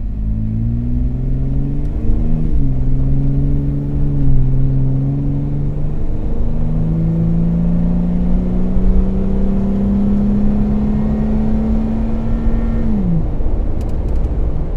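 Jeep Wrangler JK Unlimited's 3.6-litre V6 through a MagnaFlow Overland Series cat-back exhaust, heard from inside the cabin while driving, with a low road rumble underneath. The engine drone climbs and steps down in pitch about two seconds in and again around four seconds. It then rises slowly and drops off near the end.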